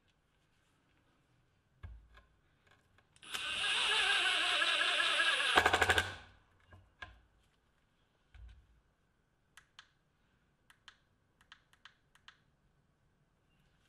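Milwaukee M18 FUEL 2753 brushless impact driver driving a screw into wood for about three seconds, its motor whining and its hammer mechanism rattling, strongest in a burst of rapid impacts near the end as the screw seats. This is followed by a few scattered clicks from pressing the speed-selection button on the tool's base, the button that was repaired.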